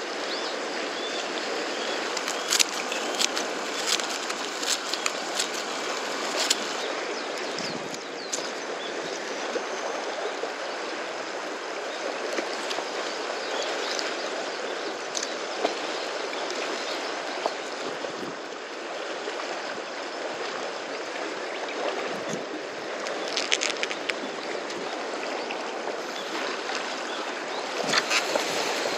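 Steady rush and gurgle of seawater lapping against the rocks at the foot of a breakwater, with scattered sharp clicks from handling the fishing tackle, a cluster in the first few seconds and more near the end.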